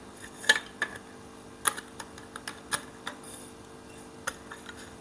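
Scattered light clicks and taps, about a dozen at irregular intervals, as the metal support tubes of a clothes-dryer stand and their threaded connector are handled and screwed together, over a faint steady hum.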